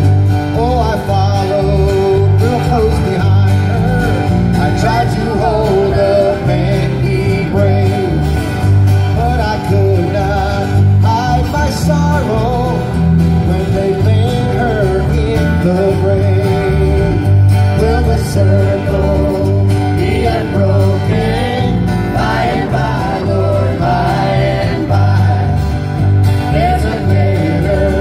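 Live band playing a country-style song with guitars and singing, amplified through PA speakers, with a strong steady bass line.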